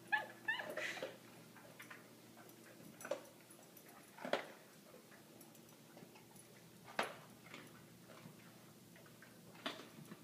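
A few sharp, separate clicks of a coonhound's claws on the hallway floor as it takes slow, hesitant steps, with a short whine in the first second.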